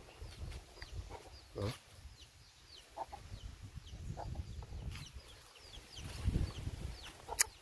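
A chicken clucks among many small birds chirping in short falling notes, over a low rumble. There is a sharp click near the end.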